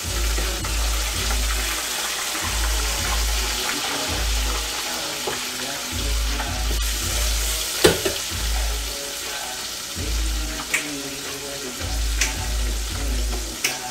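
Battered portobello mushrooms frying in hot oil in an electric deep fryer, a steady sizzle, while tongs stir them. A few sharp knocks of the tongs against the fryer; the loudest comes about eight seconds in.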